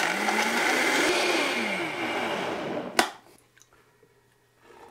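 Vitamix blender running at full power, blending frozen banana with protein powder, flaxseed and water. The motor's pitch rises and falls, and it cuts off suddenly about three seconds in.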